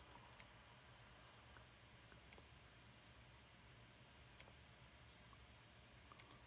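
Faint, irregular ticks and light scratching of a stylus pen on a pen-display tablet's screen as short strokes are drawn, over a low steady room hum.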